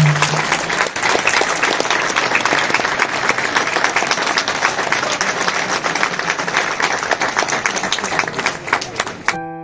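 Audience applauding, many people clapping together, just after the band's held final note dies away in the first half second. About a third of a second before the end the clapping cuts off suddenly and soft keyboard-like music begins.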